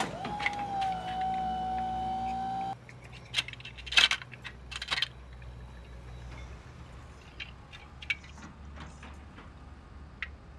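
A held electronic tone that dips slightly in pitch and then holds, stopping abruptly about three seconds in. After it, plastic Lego Duplo bricks and the toy dump truck click and knock as they are handled, with a sharp knock about four seconds in and fainter clicks later.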